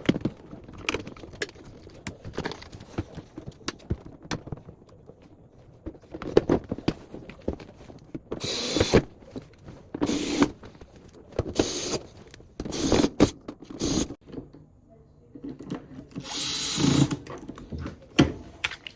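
Power drill-driver running in about six short bursts, working the bolts that hold a dishwasher's timer in the door. Scattered clicks and knocks of parts being handled come before the bursts.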